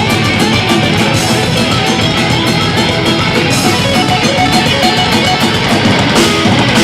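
Rock band playing live: guitars over a drum kit, with steady cymbal strokes.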